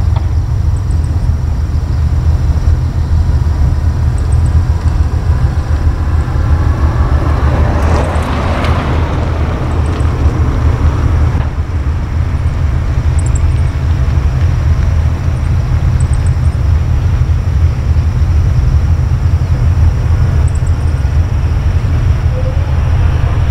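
Boeing 737-800 airliner on final approach, its jet engines heard as a steady low rumble. A swell of noise rises and fades about eight seconds in, with faint high chirps now and then.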